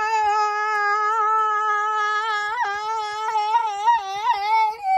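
One long, held, high-pitched vocal scream ('aaah'), steady at first and then wavering up and down in pitch from about halfway through.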